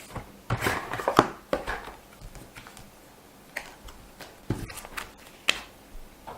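Paper and light cardboard packaging being handled: rustling and a few sharp clicks and taps, in clusters, as the printed papers are taken out of the box.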